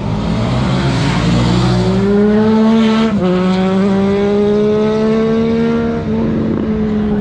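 Sport motorcycle engine accelerating hard, its pitch rising, with a sudden drop in pitch at an upshift about three seconds in and another about six seconds in.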